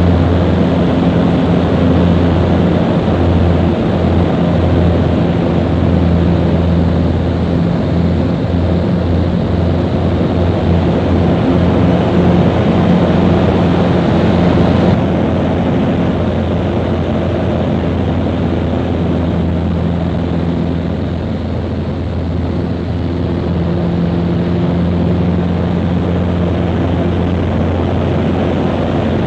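The piston engine and propeller of an open-cockpit aerobatic biplane, droning steadily in flight, with heavy wind rush as heard from the cockpit. About halfway through the sound turns slightly quieter and duller.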